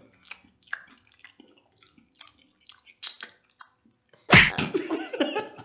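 Faint scattered chewing and mouth clicks from a person eating. About four seconds in comes a sudden loud vocal burst that trails off over about a second.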